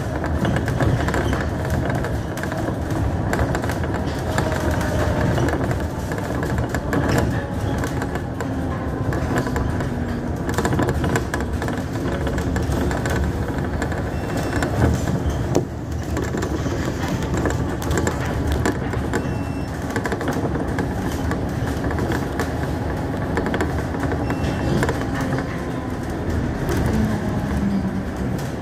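Cabin noise of a city bus on the move: the engine and tyres running with a steady rumble, with frequent small knocks and rattles from the bodywork.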